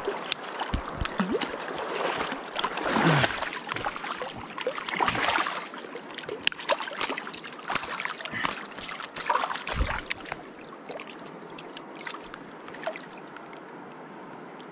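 A hooked pink salmon splashing and thrashing at the surface of shallow river water as it is led in, with irregular splashes, most of them in the first half, over the steady rush of the river.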